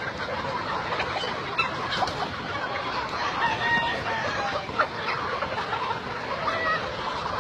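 Chickens clucking, with a steady noisy background and a few short higher calls around the middle.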